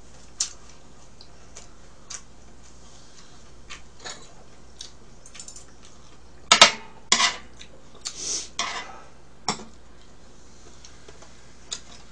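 Eating utensils clinking and clacking against dishes and the grill plate while food is handled: scattered single clicks, with a cluster of louder clacks about six and a half seconds in and a short rustle just after.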